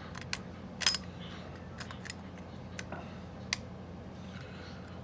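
Lock pick and tension wrench working in a pin-tumbler padlock's keyway: scattered sharp metal clicks and ticks, the loudest a short cluster about a second in, with another single click past the middle.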